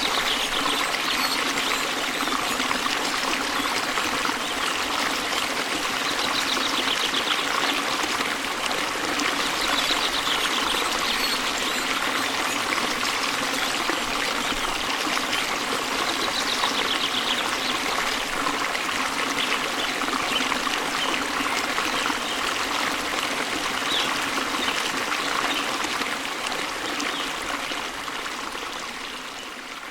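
Waterfall water rushing and splashing steadily, with a few faint high bird chirps now and then; the rush fades out over the last few seconds.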